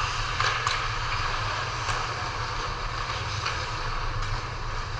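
Ice hockey game in an indoor rink: a steady low hum and hiss of rink ambience, with a few faint sharp knocks in the first two seconds.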